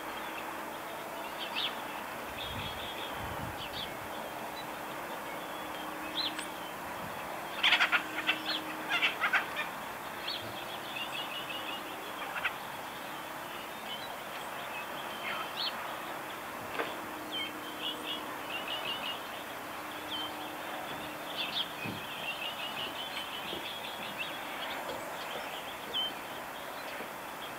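Birds chirping and calling, many short scattered calls over a steady background hiss, with a louder cluster of calls about eight seconds in.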